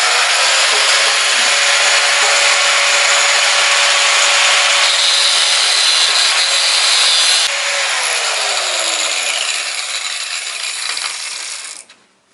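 Corded angle grinder with a cut-off disc cutting through a steel tie rod, throwing sparks. It runs loud and steady for about seven seconds. It then eases off as the motor winds down in pitch, and it stops near the end.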